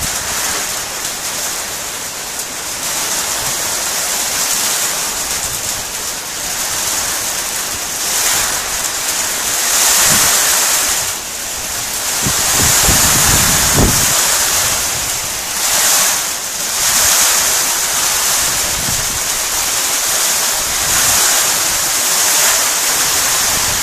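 Heavy rain and hail of a hailstorm pelting down in a dense, steady hiss. Gusts of wind buffet the microphone several times, most strongly about halfway through.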